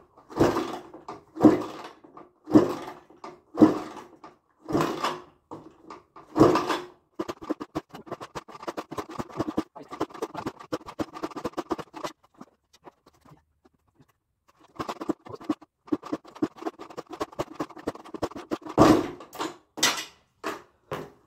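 Suzuki RM250 two-stroke dirt bike being kick-started with the choke on: a run of hard kicks about a second apart, each turning the freshly rebuilt engine over. Between the two runs of kicks there is a stretch of quicker ticking, and the engine does not catch.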